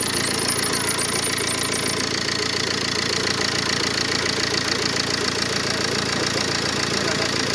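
Ford Focus diesel engine idling steadily just after being started, with the usual diesel clatter.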